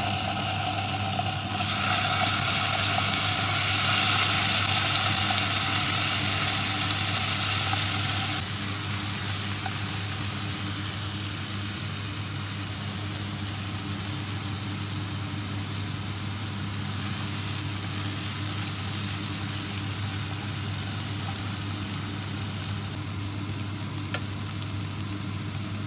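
Ginger-garlic paste and cumin seeds frying in hot olive oil in a pan: a steady sizzle that grows louder about two seconds in and drops back to a quieter sizzle after about eight seconds.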